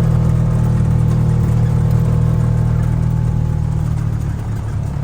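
A vehicle engine running steadily while driving, a low drone that eases off slightly near the end.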